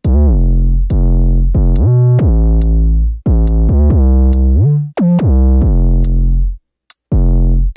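Electronic trap beat with long, distorted 808 bass notes, several of them sliding up or down in pitch, over a short high tick a little under a second apart. The beat cuts out for a moment near the end, then comes back.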